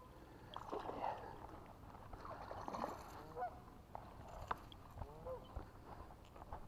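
Splashing of a hooked bass being reeled to the bank and lifted out of the pond, with a sharp click about four and a half seconds in. A few honking waterfowl calls sound over it, a second or two apart.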